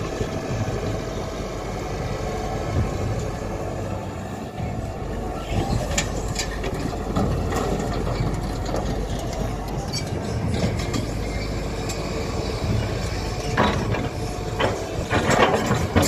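Tata Hitachi Zaxis 120 excavator's diesel engine running steadily under load, its hydraulics working the boom and bucket as it digs and loads murram. Scattered knocks and clatter of soil and stones come in from about six seconds and grow more frequent near the end.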